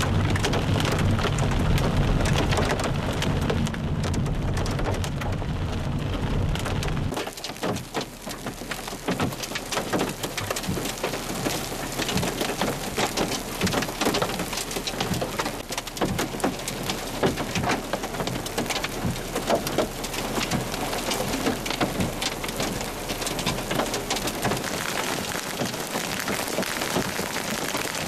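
Heavy rain and hail: for the first seven seconds a low rumble of the vehicle driving through the storm on a gravel road, which stops abruptly; then a dense hiss of rain with many sharp, irregular ticks of hailstones striking.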